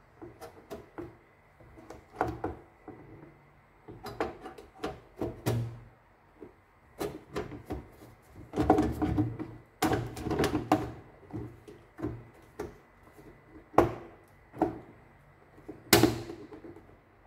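White plastic housing of a Tesco BM1333 bread maker being pried and pressed back onto its metal body: scattered plastic clicks, knocks and rattles, busiest in the middle, with two sharp knocks late on.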